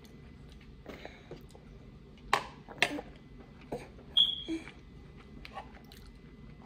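A few sharp clinks of cutlery against a dish, one of them ringing briefly about four seconds in, with small scattered knocks between.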